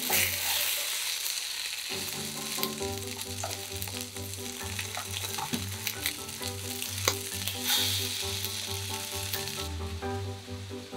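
Battered fish fillets sizzling as they shallow-fry in oil in a frying pan. A few light clicks come through as they are turned, and the sizzle swells at the start and again about eight seconds in, over soft background music.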